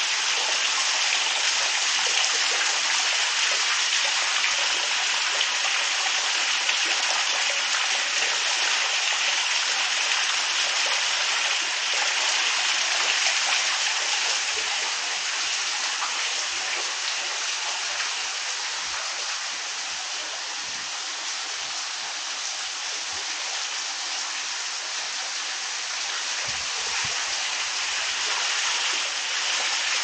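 Small waterfall spilling down rock into a pool, a steady rush of falling and splashing water, slightly quieter for a stretch in the middle.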